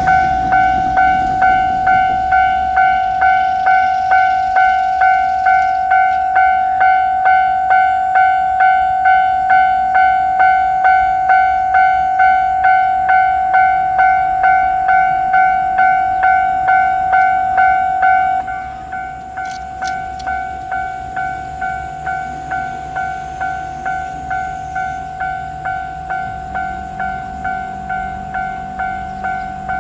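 Japanese railway level-crossing warning bell ringing in an even, repeating ding, its volume stepping down about two-thirds of the way through. A low steady hum joins in near the end.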